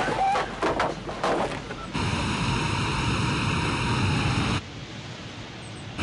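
Storm sound effects of wind, rain and heavy sea. A cluster of sharp knocks and crashes in the first two seconds gives way suddenly to a steady roar, which falls to a quieter hiss about a second and a half before the end.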